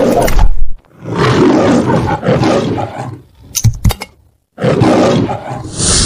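Lion roaring in the style of the MGM film logo: a short roar, a long one, and a third beginning about two-thirds of the way in, with a few short knocks between.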